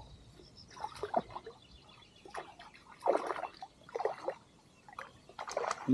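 Water splashing in short, irregular bursts, about five of them.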